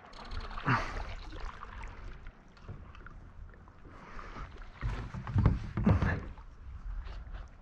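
A paddle dipping and pulling through lake water beside a stand-up paddleboard: one splashy stroke about a second in, then a louder run of strokes around five to six seconds in.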